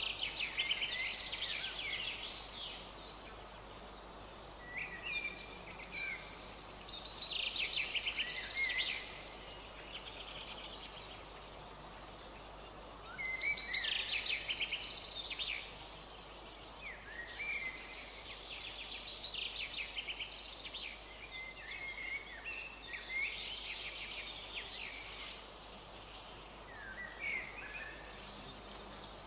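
Eurasian wryneck nestlings begging from inside a wooden nest box: phrases of rapid, high ticking calls a few seconds long, repeated throughout with short pauses between them.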